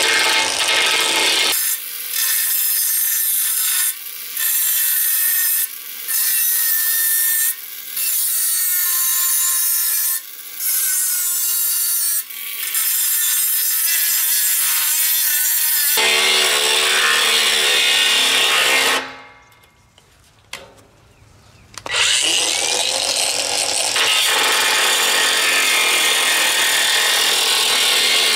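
Hyper Tough 20-volt cordless 4-inch angle grinder cutting thick steel with a cut-off wheel: a harsh grinding hiss with a motor whine that shifts in pitch. It dips briefly every couple of seconds, stops for about three seconds past the middle, then starts again and runs steadily.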